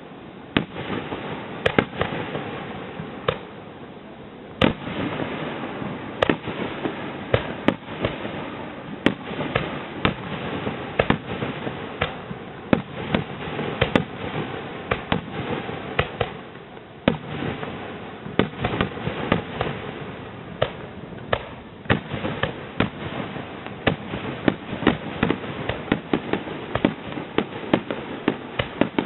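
Aerial fireworks bursting one after another, sharp bangs at an irregular pace over continuous crackling, with the booms echoing off the surrounding mountains.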